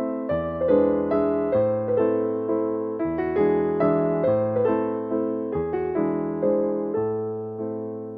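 Background music: a soft piano playing slow chords, fading down near the end.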